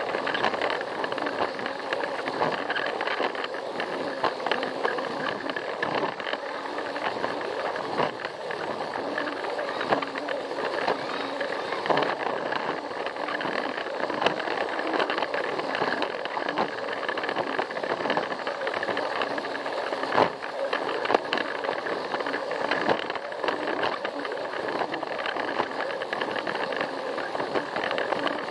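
A Plarail battery-powered toy train's motor and gears whirring steadily as its wheels rattle along plastic track, with occasional sharper clicks.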